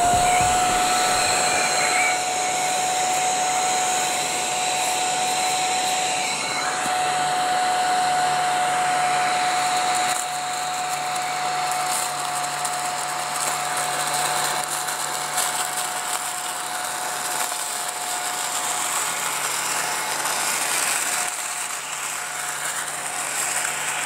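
Mini ladybird-shaped battery desktop vacuum running with a steady high whine over an airy rush of suction as it is pushed over shredded paper scraps, sucking them up. The whine fades in the last few seconds.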